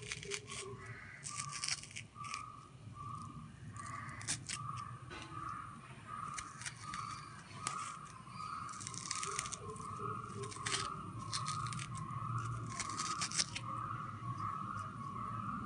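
A metal spoon scraping and scooping the flesh out of a raw potato half, in bursts of short scratchy clicks. A repeated high pip sounds steadily in the background, about one and a half times a second.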